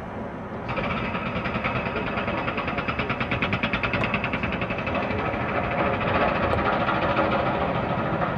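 Rapid, even mechanical clattering that starts about a second in and keeps going steadily, several beats a second.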